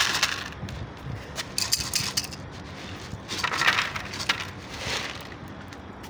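Dry cat food kibble rattling in a plastic jar and spilling out in about four short bursts, the loudest about halfway through.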